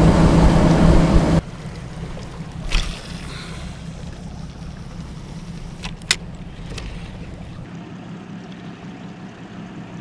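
Boat engine running at speed with the rush of the wake, cutting off suddenly about a second and a half in. Then a much quieter stretch with a few sharp clicks.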